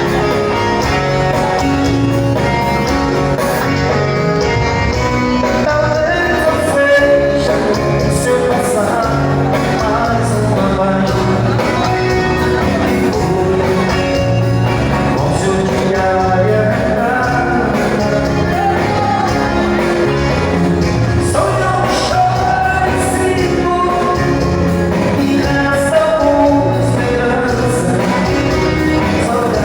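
A live band playing, with sung vocals over a steady bass beat.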